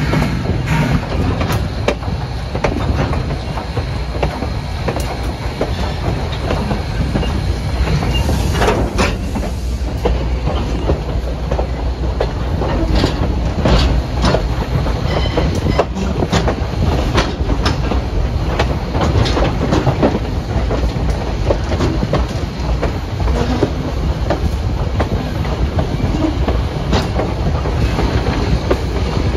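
Train rolling along the track: a steady low rumble with frequent clicks and clacks of the wheels over rail joints, more of them in the second half.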